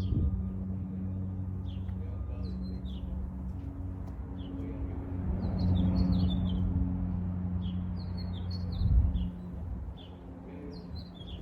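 Small birds chirping in short, repeated calls over a steady low hum, with a dull thump about nine seconds in.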